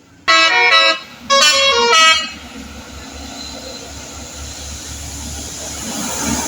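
Bus telolet horn, a multi-tone musical air horn, playing two short phrases of stepping notes. After them a vehicle's engine and road noise grows steadily louder as it draws near.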